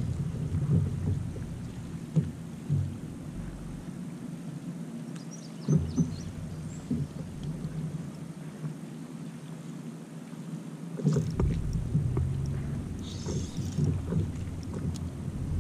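Low rumble of wind and water around a small fishing kayak, with the hull and gear giving a few light knocks. The rumble dies down for several seconds in the middle and picks up again.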